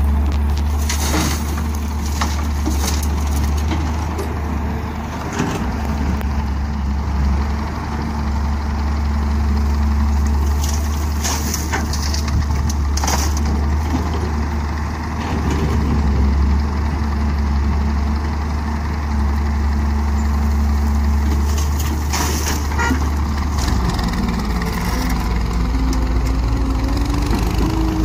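Diesel engines of a Hyundai wheeled hydraulic excavator and a farm tractor running steadily. Several bursts of clatter come as the excavator bucket dumps soil and stones into the steel trolley. From a few seconds before the end, an engine revs up, rising in pitch, as the loaded tractor pulls away.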